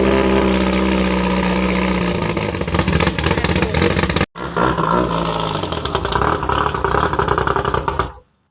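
Loud engine of a Thai long-tail racing boat running at high revs, its pitch easing down a little over the first two seconds. The sound cuts out abruptly about four seconds in, comes straight back, and stops shortly before the end.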